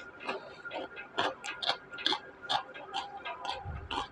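Close-miked chewing of crisp fried onion pakoda: irregular short crunches, about three a second.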